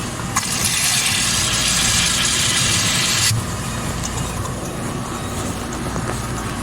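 Steady low rumble of a car running, heard from inside the cabin. A loud hiss starts suddenly about a third of a second in and cuts off abruptly about three seconds later.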